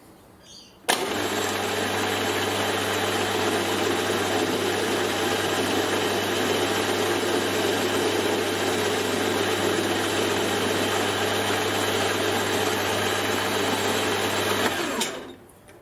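Workshop machine tool's electric motor switched on, running steadily for about 14 seconds, then switched off and winding down; it drives a cut that brings a small spacer down to size.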